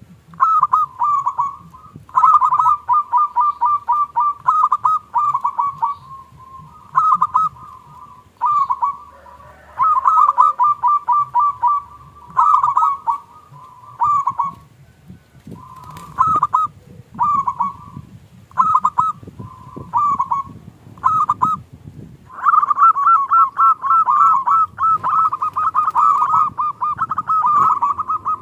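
Local zebra dove (perkutut) cooing: repeated phrases of quick staccato cooing notes with short gaps between them, running into a longer unbroken series near the end.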